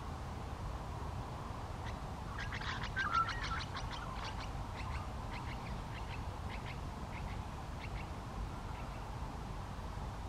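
A bird calling in a rapid series of short, sharp notes starting about two seconds in, quick and crowded at first, then slowing, spacing out and fading away, over a steady low rumble.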